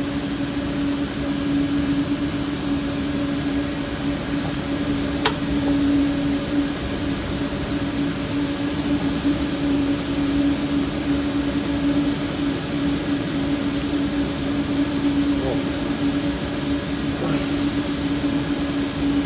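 Steady machine hum of a running Gildemeister CTV250 Linear CNC lathe: an even drone with one constant low tone, and a single sharp click about five seconds in.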